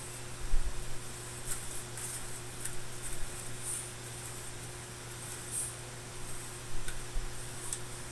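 Light handling sounds: soft clicks and short rustles of plastic sheeting as the model's fuselage parts are pressed and held together, with a low thump about half a second in. A steady electrical hum runs underneath.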